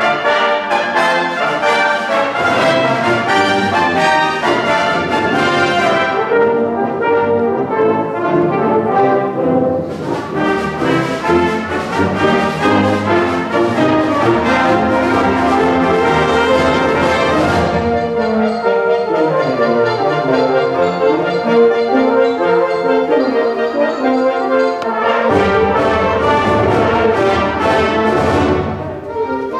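A concert wind band playing, brass and woodwinds together. Loud, full passages alternate with softer, lower ones: the full sound drops back after about six seconds, returns about ten seconds in, eases again a little past halfway, and swells once more near the end.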